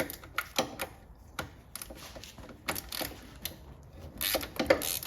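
Ratchet wrench clicking in short irregular runs of sharp clicks, denser near the end, as an 18 mm engine-mount bolt is broken free.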